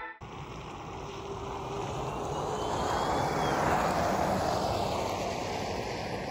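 Jeep Wrangler Rubicon 4xe driving past: tyre and road noise swells to a peak about four seconds in, then fades away.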